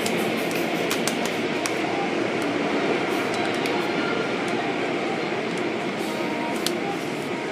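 Automatic car wash tunnel running: a steady rushing noise of rotating brushes and water spray, heard through glass viewing windows, with scattered light clicks.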